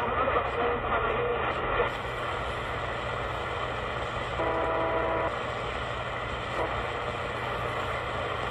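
Sangean ATS909x2 shortwave radio being tuned across the 16-metre band: steady static hiss from its speaker between stations, with a short chord of steady tones about halfway through as the dial passes a signal.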